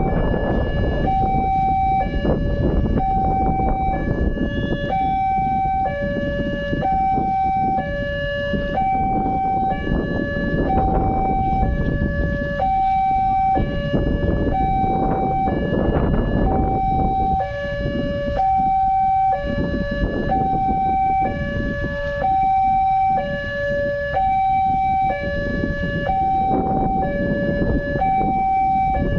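Indonesian railroad level-crossing warning alarm sounding continuously, an electronic two-tone chime alternating evenly between a higher and a lower note, which signals that a train is approaching and the barriers are closed. A steady low rumble runs underneath.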